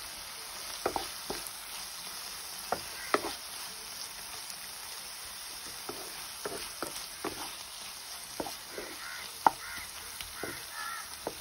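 Wooden spatula stirring broccoli and tomato in a pan: irregular scrapes and knocks against the pan over a steady sizzle, with one sharper knock about nine seconds in.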